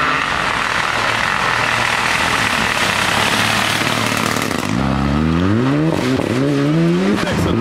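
Renault Clio Rally4 rally car at full throttle as it passes and pulls away. The engine first gives a rough, noisy blare, then about two-thirds of the way in its note climbs in pitch in repeated steps, dropping back between each as it shifts up through the gears.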